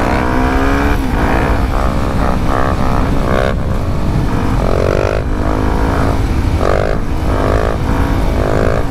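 Motorcycle engine revving in repeated rising surges, its pitch climbing and dropping back again and again, over a heavy wind rumble on the microphone at riding speed.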